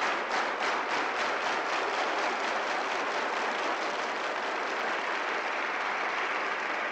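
A large crowd applauding: rhythmic clapping at about three claps a second that merges after a couple of seconds into steady, even applause.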